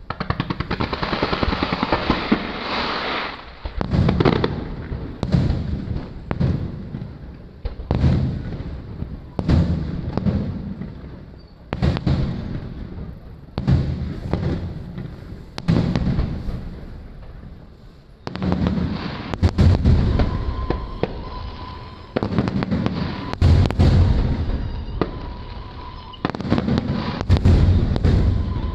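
Aerial fireworks shells bursting in the sky: a dense crackling rush at the start, then a run of booms with rumbling tails, one about every one and a half to two seconds. A faint steady tone comes in about two-thirds of the way through.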